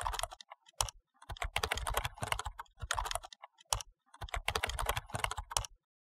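Typing on a computer keyboard: quick runs of keystrokes in several bursts with short pauses between them, stopping shortly before the end.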